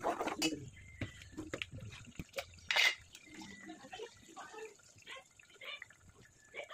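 Light kitchen handling sounds: a spoon knocking and scraping in a metal bowl, and wet sounds as liquid is worked into flour for dough. There are scattered small knocks, with one louder, brief noise about three seconds in.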